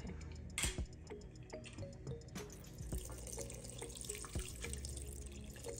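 Milky yeast mixture poured from a glass bowl into a stainless-steel stand-mixer bowl: soft liquid splashing and trickling, with a few light clicks.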